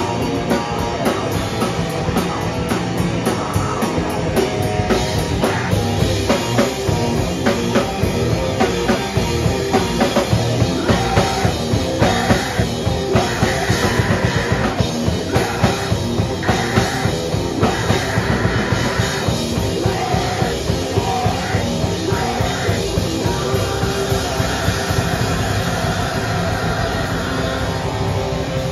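Live heavy punk/metal band playing loud: distorted bass and guitar over fast drumming, with a vocalist shouting into the microphone through the middle of the song.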